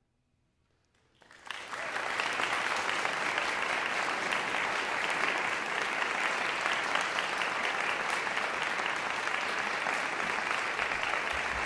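An audience applauding. It starts suddenly out of near silence about a second and a half in, then holds steady.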